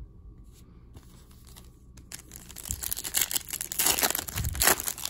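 Foil wrapper of an Upper Deck Synergy hockey card pack crinkling and tearing as it is ripped open by hand, starting about two seconds in and loudest near the end.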